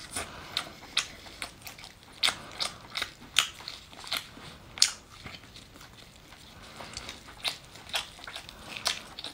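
A person chewing soft scallop meat, with wet mouth smacks and sharp clicks, roughly one or two a second.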